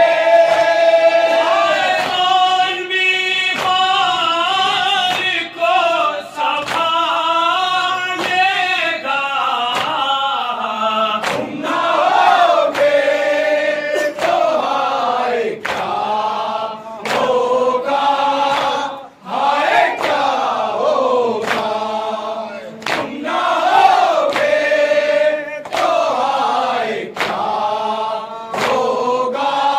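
Men chanting an Urdu noha, a Muharram mourning lament, with a lead voice and others joining in. Sharp chest-beating (matam) slaps recur a little under once a second throughout.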